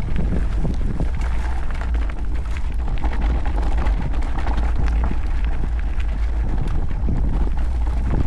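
Wind buffeting the microphone over mountain-bike tyres rolling on a dirt and gravel trail, with constant small clicks and rattles from the bike over the rough ground.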